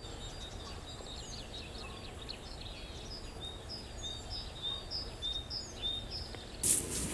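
Several small songbirds singing in spring, a scatter of short high chirps and whistles over a low background rumble. Near the end a louder rustling noise starts.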